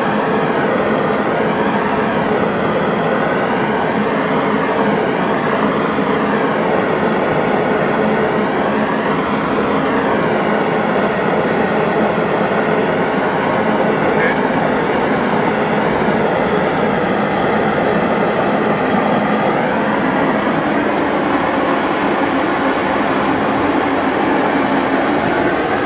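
Hand-held gas torch blowing a steady, loud roaring rush as its flame is played along a hanging glass cane to heat it during the pull, the tone of the rush sweeping slowly up and down as the torch is moved.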